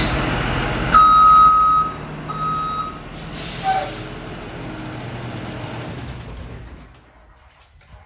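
School bus running in a garage bay, its backup alarm giving two steady beeps about one and two seconds in, as the bus is put in reverse for the backup-light check. A short hiss of air follows, and the engine noise drops away near the end.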